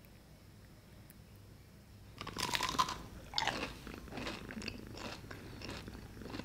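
Crisp fried churros being bitten and chewed with loud crunches, starting about two seconds in; the first bites are the loudest, followed by a string of further crunches.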